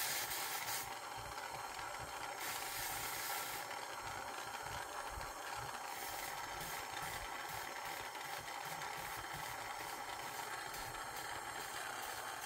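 Steady hiss of a handheld gas torch flame heating a solder-tinned silver plate, with two short louder bursts of higher hissing in the first few seconds as a wet flux brush spreads the molten solder.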